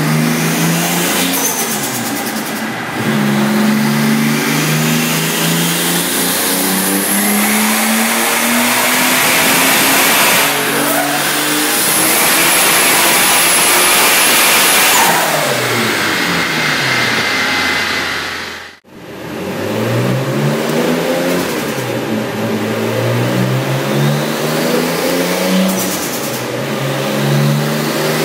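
Toyota Supra's sequential twin-turbo straight-six being revved up and down over and over while it is tuned. A longer climb in revs with a faint high whistle comes near the middle. The sound breaks off briefly about two-thirds through, then the revving picks up again.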